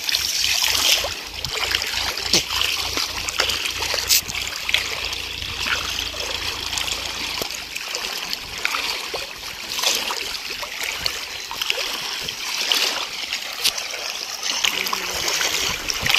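Water splashing and swishing irregularly around legs wading through knee-deep river water, with a low rumble during the first half.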